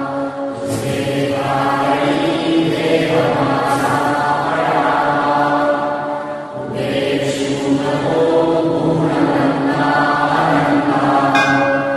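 Devotional background music: a group of voices chanting in unison in long held phrases, with brief pauses between them.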